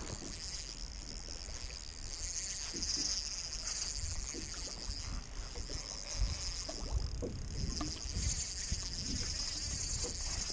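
Water lapping and slapping against the hull of a small boat, with wind buffeting the microphone in irregular low rumbles and a steady high hiss throughout.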